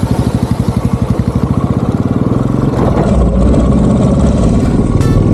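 Royal Enfield Bullet 350's single-cylinder engine thumping in an even, slow beat at low revs. From about halfway the beat blurs into a steadier, fuller run as the revs rise. Music comes in right at the end.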